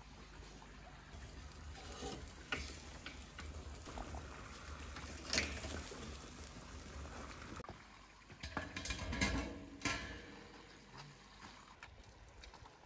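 Grass carp kebab sizzling on skewers over hot coals inside a tandoor, with several sharp clicks and knocks.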